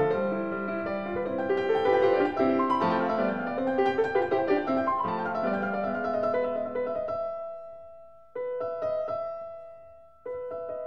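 Background piano music: a run of many quick notes that thins out about seven seconds in, then two held chords, each struck and left to fade.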